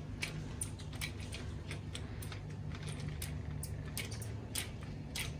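Shopping cart pushed along a tiled supermarket aisle: light, irregular clicking and rattling, about four clicks a second, over a steady low hum.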